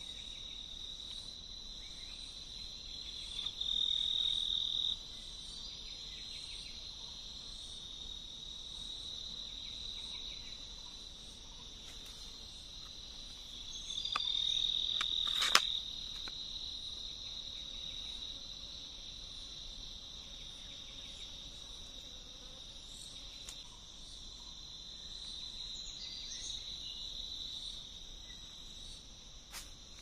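Steady high-pitched insect trill, a continuous chorus that swells louder twice for a second or so. About halfway through, one sharp click or snap.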